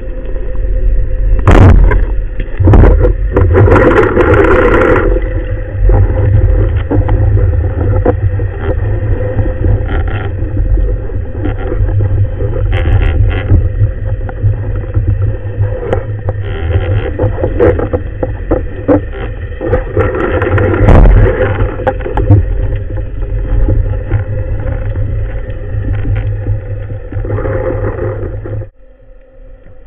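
Motorboat engine running steadily with a heavy low rumble and a few knocks in the first seconds; it stops suddenly near the end.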